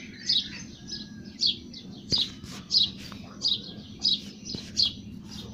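Milk squirting from a cow's teats into a metal pail during hand milking: a short hissing squirt with each squeeze, repeating evenly about every two-thirds of a second.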